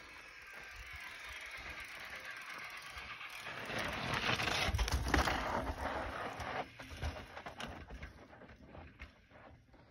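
Mountain bike rolling down steep rock, its rear freehub buzzing as it coasts, with the tyres crunching over rock and dirt. It grows louder as the bike comes close, is loudest about halfway through as it drops past, then fades as it rolls away downhill.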